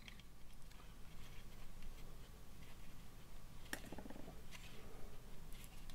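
A few faint, sharp clicks and light rubbing of small plastic model-kit parts handled between the fingers as the engine cowling is pressed onto the fuselage nose; the clearest click comes a little under four seconds in.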